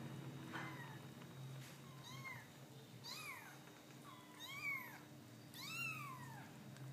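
Young kittens mewing: four short, high-pitched mews, each rising then falling in pitch, the last two the loudest.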